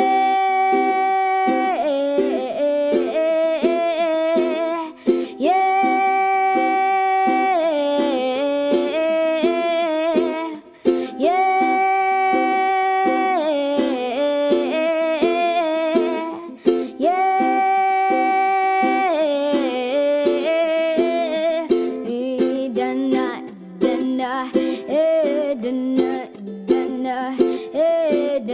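Music: long held melody notes in phrases that repeat about every six seconds, over a plucked-string accompaniment.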